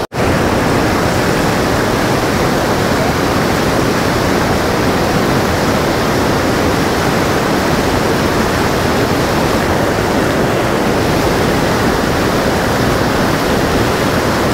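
Loud, steady rush of whitewater rapids on a fast mountain river, close by. It cuts in abruptly after a split-second gap right at the start.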